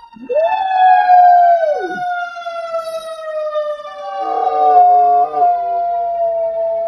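A golden retriever howling along with an emergency vehicle's siren outside. The siren holds one long wail that sinks slowly in pitch. The dog howls twice: one rising, held and falling howl in the first two seconds, then a second about four seconds in.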